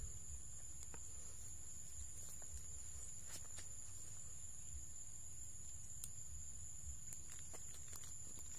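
Steady high-pitched insect drone, with a low rumble underneath and a few faint scattered clicks.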